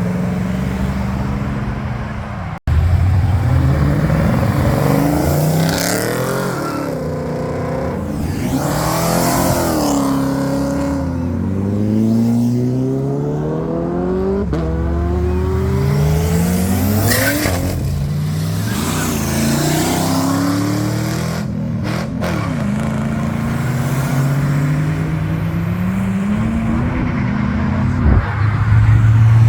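V8 muscle-car engines revving and accelerating, their pitch climbing and falling several times in succession. There is a brief dropout in the sound about two and a half seconds in.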